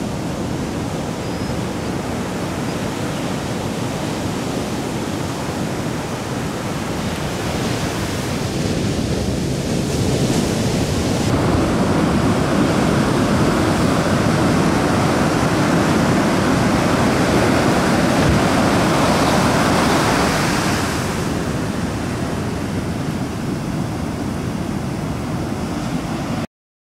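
Ocean surf breaking: a steady rushing wash of waves that grows louder for about ten seconds in the middle, then cuts off abruptly just before the end.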